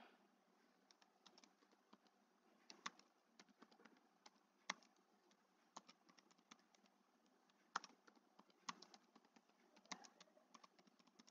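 Faint, irregular keystrokes on a computer keyboard as a password is typed, with a few louder key clicks spread through.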